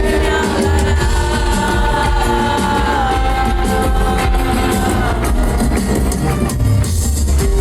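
Live band playing a slow song, with one long held melody note that steps down in pitch twice over steady bass and drums.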